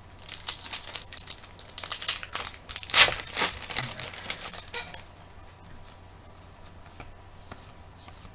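Crinkling and tearing of a trading-card pack wrapper being ripped open and handled, densest in the first few seconds and loudest about three seconds in, then thinning to light rustles.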